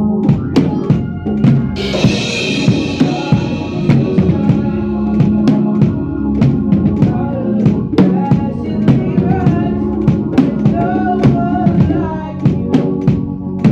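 Drum kit played in a steady beat, kick and snare strikes with a cymbal crash about two seconds in. Sustained low notes from other instruments carry on underneath.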